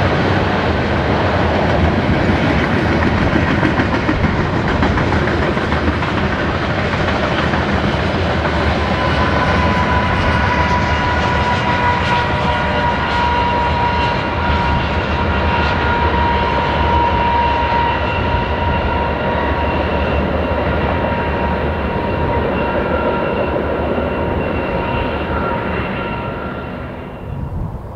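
Freight train cars rolling past on the rails, a steady loud rumble. From about a third of the way in, a steady high-pitched squeal rides over it. The noise falls away just before the end.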